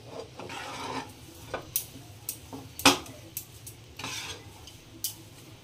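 Flat steel spatula scraping and pressing stiff semolina-and-milk dough around a non-stick pan, stirring the mawa into one mass. The scraping comes in strokes, broken by several sharp clacks of the spatula against the pan, the loudest about three seconds in.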